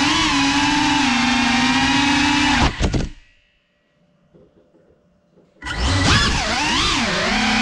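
GEPRC Cinelog 35 cinewhoop's brushless motors and propellers whining steadily in flight, then a short clatter a little under three seconds in as the drone crashes to the floor and the motors cut out. After about two and a half seconds of near silence, the motors spin back up with the pitch swinging up and down, then settle into a steady whine.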